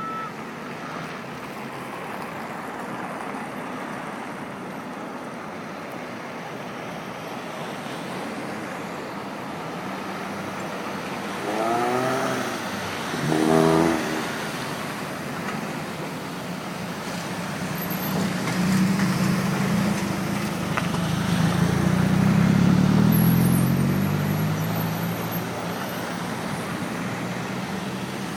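Road traffic running steadily. Near the middle there are two short pitched sounds whose pitch bends. In the second half a vehicle passes close by, its engine pitch rising and then falling as it goes.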